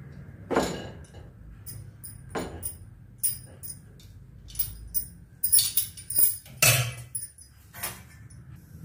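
Steel ladle scraping and clinking on a non-stick tawa while dosa batter is spread in circles, with bangles jingling on the cook's wrist in short irregular bursts.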